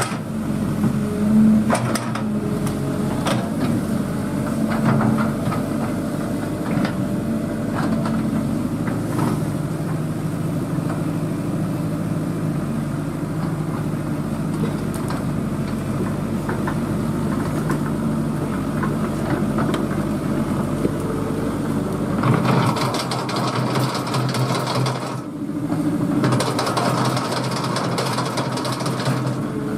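Excavator's diesel engine running steadily, with sharp knocks and cracks over the first several seconds. About 22 seconds in the engine's note changes and grows fuller, with a brief drop about 25 seconds in.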